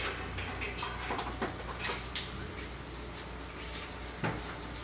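Several light metallic clinks and knocks from coilover parts and tools being handled on the spring-compressor stand, over a steady low hum.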